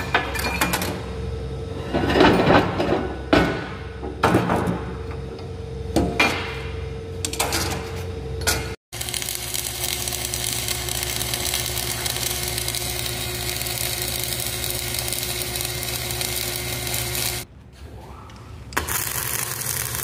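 A wire-feed (MIG) welder's arc crackling steadily while a steel support plate is welded, breaking off briefly and starting again near the end. Before it, in the first part, irregular metal knocks and clatter over a steady hum.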